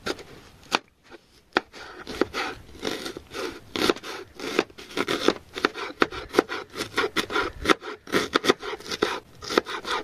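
Large knife chopping a red onion on a round wooden chopping board: a few separate cuts at first, then rapid, steady chopping strokes knocking on the board from about two seconds in.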